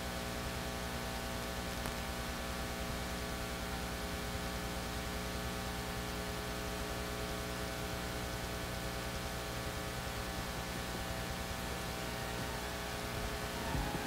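Steady electrical mains hum on the audio line, a buzz with many evenly spaced overtones. Music starts to fade in just before the end.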